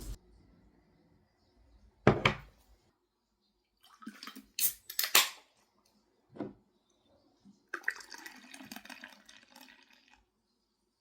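Kitchen dishes and utensils clattering in a few separate knocks and clinks, then water running for about two seconds from near the end.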